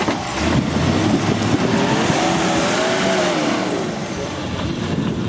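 Off-road 4x4 engine revving hard under load, its pitch rising to a peak about three seconds in and then falling, while the tyres spin and scrabble on loose dirt and stones on a steep climb.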